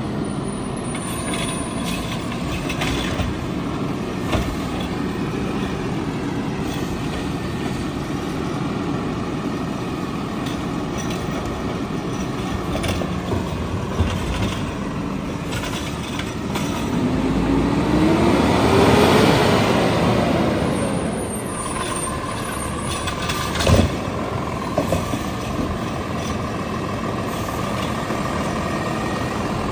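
Peterbilt 520 garbage truck engine running, rising in pitch and then falling again about two-thirds of the way through. A steady whine follows, with a sharp knock shortly after, and air-brake hissing is also heard.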